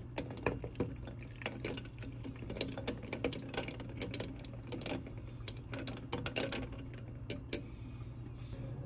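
Ice cubes clinking irregularly against a glass mug as an iced matcha latte is stirred with a metal spoon and frothed matcha is poured in over the ice and milk. A steady low hum runs underneath.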